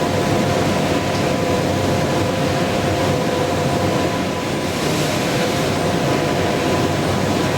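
Röders RXP801 high-speed milling machine cutting steel: a steady high spindle whine with a dense cutting hiss. The level dips briefly about four and a half seconds in.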